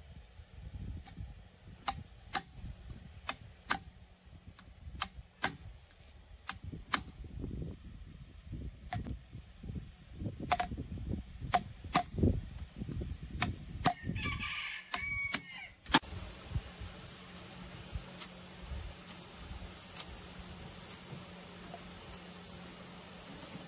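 Irregular sharp clicks and knocks for the first fourteen seconds or so, then a rooster crowing briefly. About two-thirds of the way in, a steady high hiss with a low hum starts and runs on.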